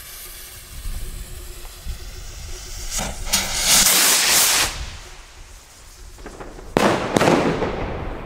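Weco firework rocket: the lit fuse hisses, then the rocket takes off with a loud rushing whoosh about three seconds in. About seven seconds in comes the sudden loud bang of its burst, trailing off.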